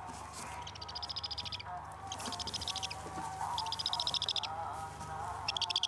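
Bird calling in four short bursts of rapid, high chattering notes, each lasting under a second, over a steady low hum.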